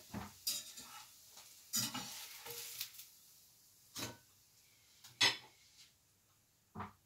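Kitchenware clattering: a utensil clinking and knocking against a frying pan and plate in a series of separate strikes, the loudest about five seconds in.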